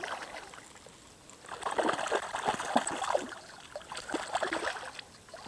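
Hooked grayling thrashing at the water surface as it is reeled in: a run of irregular splashes starting about a second and a half in, with a few smaller ones near the end.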